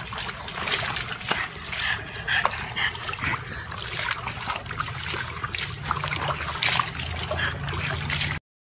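Water splashing and sloshing in a plastic tub as a dog moves around in it, slopping water over the rim in a rapid run of splashes. The sound cuts off abruptly near the end.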